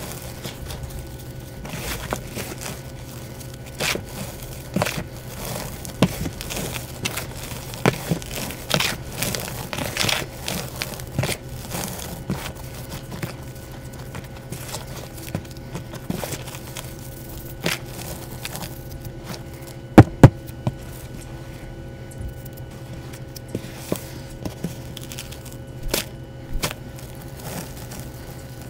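Hands squeezing, clapping and raking crumbled dyed gym chalk in a plastic tub: irregular soft crunching and crackling of powder and small chunks. Two sharp loud clicks come close together about twenty seconds in.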